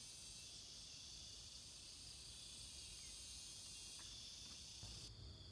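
Faint, steady chorus of insects shrilling high; the sound narrows to a single high band about five seconds in.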